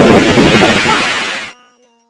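The last moment of a sped-up, chipmunk-voiced pop song: loud, dense music that cuts off abruptly about one and a half seconds in, leaving a few faint held tones that fade away.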